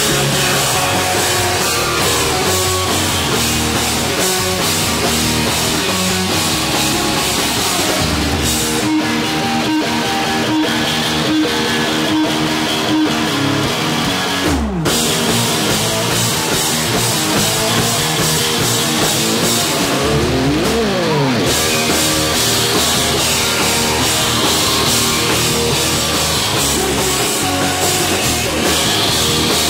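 Live rock band playing loud: distorted electric guitar, bass guitar and drum kit. There is a split-second break about halfway through, then a falling slide, and a few seconds later a run of quick up-and-down sliding notes.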